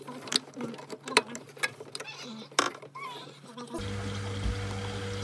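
Hands handling parts inside a Vaillant ecoTEC Plus combi boiler: scattered sharp clicks and knocks from fitting the diverter valve and its plug-in connector. About four seconds in, these give way to a steady low hum of the boiler running.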